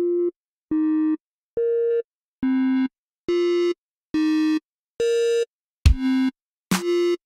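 Synthesizer playing short, evenly spaced notes of changing pitch with silence between them, a little more than one a second. The notes grow steadily brighter, and a kick drum comes in under them near the end, as the intro of an electronic dance track builds.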